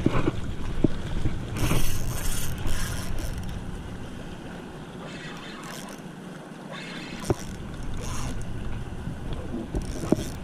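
Wind buffeting the camera microphone as a low rumble, easing off for a few seconds mid-way, with scattered brief scratches and a few sharp clicks.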